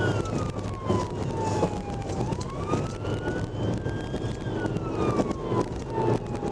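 Police car siren on a slow wail, its pitch sliding down and back up over a few seconds, heard from inside the pursuing police car's cabin over steady engine and road noise.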